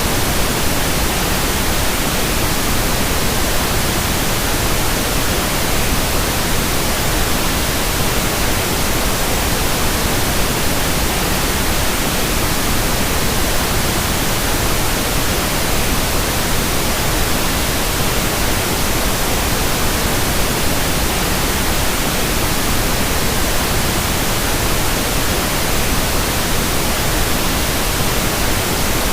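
Steady synthetic masking noise: an even, unchanging hiss spread across all pitches, for masking tinnitus.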